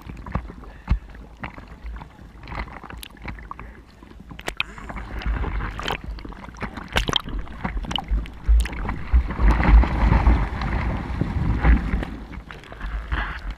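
Sea water sloshing and splashing against a camera held just above the surface on a bodyboard. About eight seconds in, a louder rushing wash of broken wave foam sweeps past for some four seconds.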